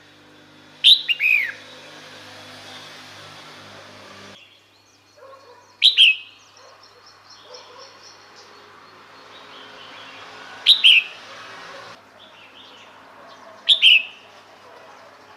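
Female red-whiskered bulbul calling: four short calls a few seconds apart, each a quick note sliding downward in pitch.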